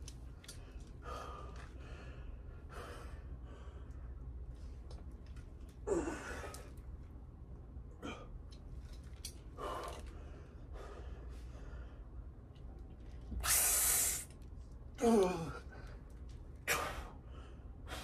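A man breathing hard through heavy barbell curls: a run of sharp gasps and puffed exhales. Two strained grunts fall in pitch, about six seconds in and again near fifteen seconds. The loudest sound is a long, forceful blow of breath just before the second grunt.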